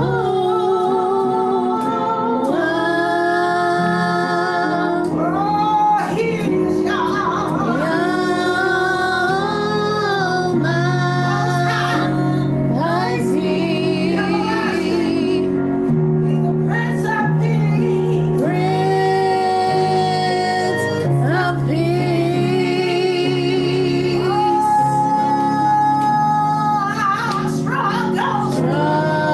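A worship song: a woman singing long, wavering held notes over steady low instrumental backing.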